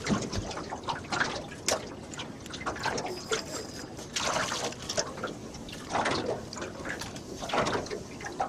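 Water splashing and dripping around a landing net as a hooked flathead is scooped out beside the boat: irregular splashes and drips.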